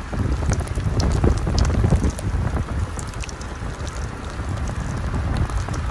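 Strong gusty wind buffeting the microphone as a low, uneven rumble, with scattered faint ticks over it.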